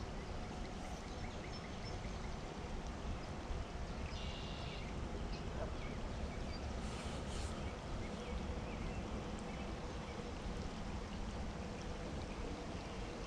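Steady rain falling, an even hiss with no break, with a brief faint high sound about four seconds in.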